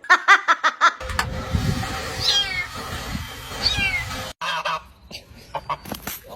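An animal calling: two short, high calls, each falling in pitch, about a second and a half apart, over a steady background rumble.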